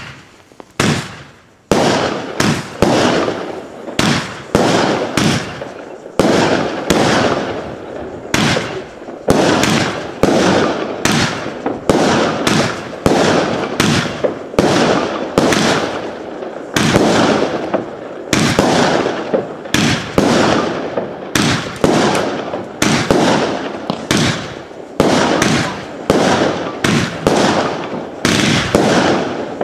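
Jorge Thunder Rain SM9805 firework cake, a 25-shot cake with 20 mm tubes, firing shot after shot, about one to two a second. Each shot is a sharp bang that dies away quickly.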